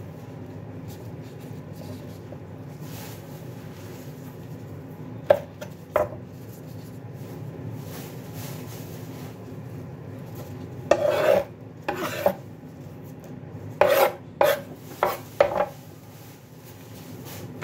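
Gloved hands rolling cabbage leaves around a filling on a wooden cutting board: crinkling, rubbing rustles of plastic gloves and leaves in short bunches later on, with two sharp taps about five and six seconds in, over a steady low hum.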